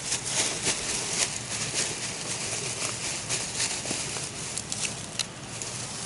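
Dry grass and reeds rustling and crackling, with many irregular small clicks, as someone moves and crouches through them.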